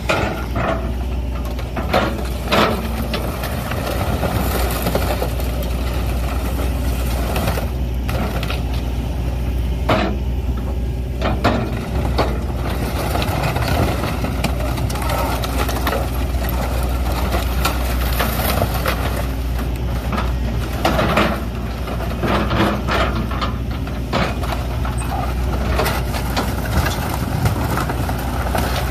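John Deere excavator's diesel engine running steadily while the machine tears and crushes a motorhome's body. Repeated sharp crunches and clatters of breaking wood panelling and sheet metal come throughout.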